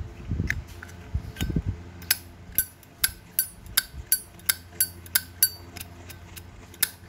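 Brushed-chrome Zippo lighter's lid flicked open and snapped shut over and over: a string of sharp metallic clacks with a bright ring, about two to three a second, after a few low handling bumps. The clear ring is the 'good sound' a sound Zippo lid is expected to make.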